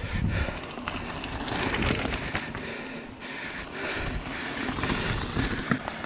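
Mountain bikes rolling over a leaf-covered dirt trail: a rustling crunch of tyres on dry leaves, with a few sharp clicks and rattles from the bikes.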